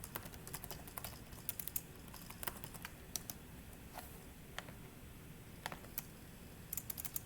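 Computer keyboard typing: irregular single keystrokes with a quick run of keys near the end.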